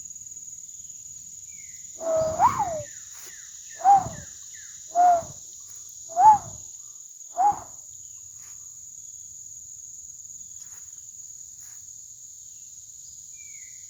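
Yellow-billed cuckoo (rain crow) giving a slow series of five hollow, down-hooked "kowlp" notes about a second apart over a steady chorus of crickets and insects. Another bird gives a few short, high down-slurred chirps.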